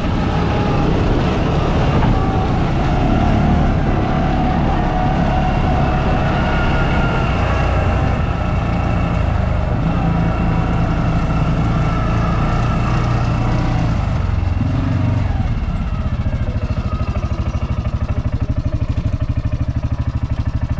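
Engine of an off-road utility vehicle running under way, its pitch shifting up and down. It settles into a steady, even pulsing near the end.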